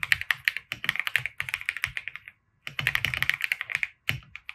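Typing on a computer keyboard: rapid runs of keystrokes with a short pause a little over two seconds in.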